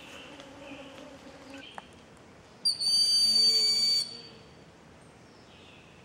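Broad-winged hawk calling once: a short note running straight into a thin, high, level whistle about a second and a half long. Before it, during the first couple of seconds, a steady insect hum.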